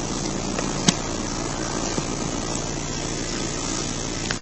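Engine idling steadily, with a sharp click about a second in and a smaller one about two seconds in.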